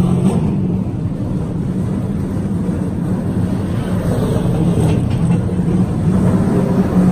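NASCAR Cup Series stock car V8 engines running steadily at low speed as the cars roll past in low gear, a deep even drone throughout.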